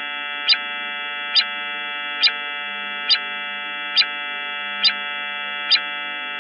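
Eerie electronic drone of many steady held tones, presented as the sound of a moon made from spacecraft signal data, with a sharp tick repeating a little more than once a second.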